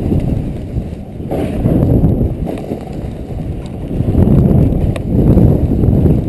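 Snowboard riding through soft snow, the board's base and edges making a low rushing scrape that swells and fades with each turn, every second or two.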